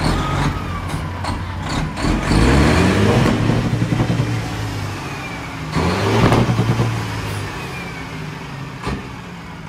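International cabover semi truck's diesel engine revved hard twice, about two seconds in and again about six seconds in, each time rising in pitch, holding for a second or two, then dropping back toward idle.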